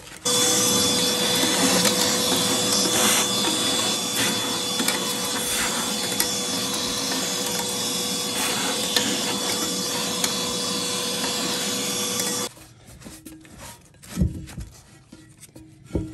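An electric tool's motor switched on, running steadily with a constant whine over a rough hiss for about twelve seconds, then cut off suddenly. Faint scraping and a couple of knocks follow.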